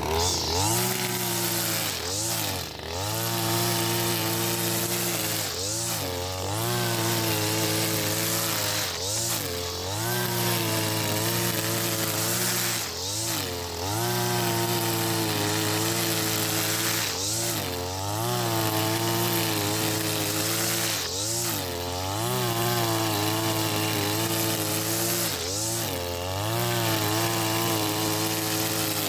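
Husqvarna 542RBS 42cc two-stroke brush cutter running at high revs with nylon trimmer line cutting grass. Its pitch dips briefly about every three to four seconds as the engine bogs under the load.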